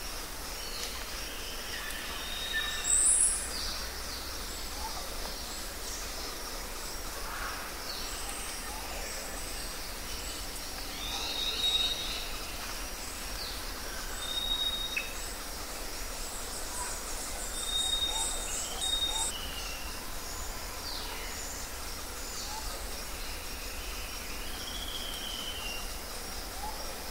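Birds calling in short whistles and chirps, scattered and unevenly spaced, over a steady background hiss of outdoor ambience.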